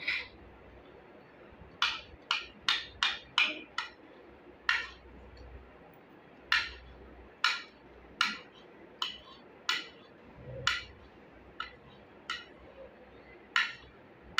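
Sharp taps and clicks at irregular intervals, some in quick runs of three or four a second, from hard objects knocking during eating at a plate.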